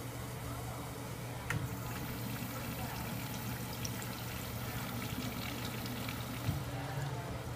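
American Standard urinal flushing: a sharp click about a second and a half in, then water rushing and washing down the bowl.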